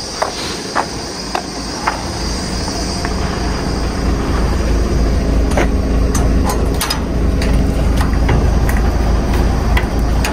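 DAF XF 510 lorry's engine and drivetrain running with a steady low drone that grows louder about two seconds in, as if pulling under more load. Four sharp clicks come in the first two seconds, and a few more knocks and rattles come a little past the middle.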